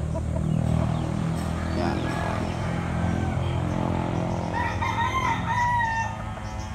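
Rooster crowing among tethered gamecocks: one long crow about four and a half seconds in, over a steady low rumble.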